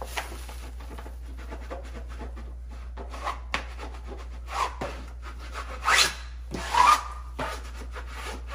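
A small smoothing tool rubbing and scraping across grasscloth wallpaper as it is pressed into an inside corner: a series of short, irregular scrapes, the two loudest about six and seven seconds in.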